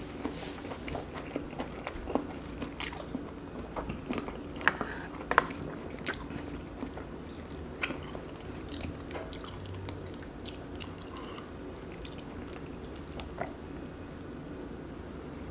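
A person chewing braised kimchi and pork with rice, close to the microphone: irregular wet mouth clicks and smacks, with a couple of sharper ones about five seconds in.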